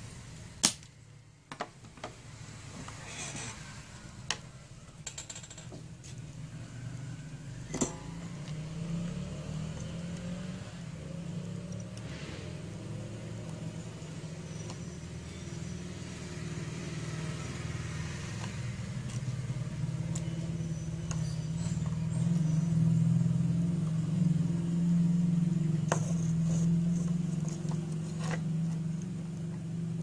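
A steady low engine-like hum that grows louder in the second half. A few sharp clicks, mostly in the first eight seconds and twice near the end, come from handling the circuit board and soldering tools.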